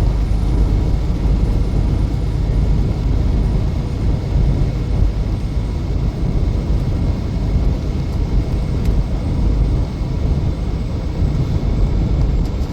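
Steady low road and engine rumble inside a vehicle's cabin while it drives along a highway at about 45 mph.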